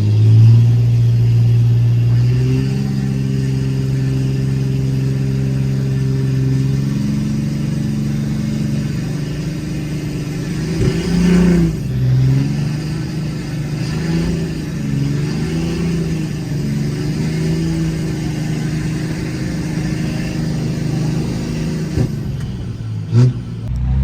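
Turbo-diesel pickup truck engine under full load pulling a sled in third gear. It holds a steady drone at first, then wavers and bogs from about halfway as the sled digs in, and drops off near the end.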